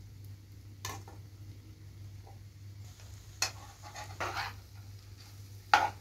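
Metal spoon clinking and scraping against a metal bowl and pan as chopped herbs are spooned into rice filling: four short clinks and scrapes, the loudest near the end, over a steady low hum.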